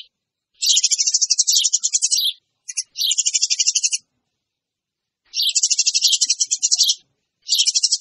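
Eurasian tree sparrows chattering noisily: rapid runs of high chirps, about nine a second, in four bouts of one to two seconds with silent gaps between, a lure call for drawing in tree sparrows.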